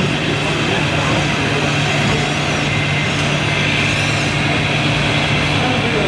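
Radio-controlled scale trucks running, their sound modules playing a steady diesel-truck engine drone.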